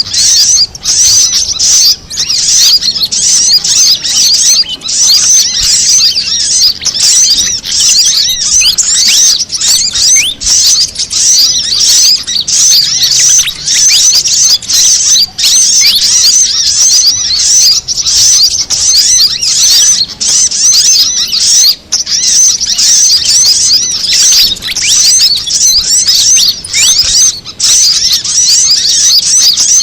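Bird-lure recording mixing the calls of fantails and sunbirds: a dense, loud, unbroken twittering of quick, high-pitched chirps and short glides.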